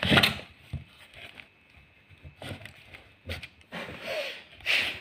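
Tape-wrapped cardboard parcel being handled and set down on a floor: a few separate scrapes and rubs of hands and box.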